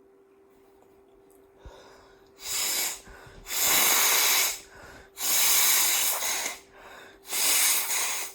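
A person blowing a congested, snotty nose four times, with a rattle of mucus. Each blow is a loud rush of air, the middle two longer than the first and last.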